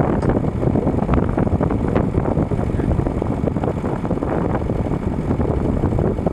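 Tractor engine running steadily, a dense even rumble.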